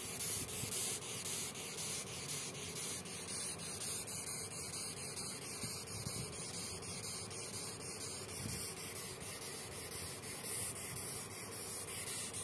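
Longhorn beetle stridulating: a rapid, repeated scratchy rasping made by rubbing its thorax segments together, the squeaking call it gives when held.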